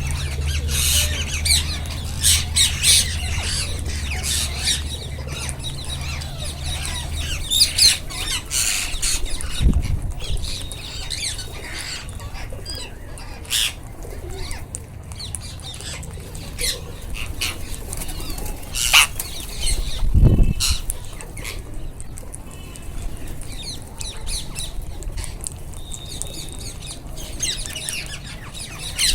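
A flock of wild Indian ringneck parakeets (rose-ringed parakeets) calling with short, high squawks on and off, with wing flapping and a couple of low thumps among them.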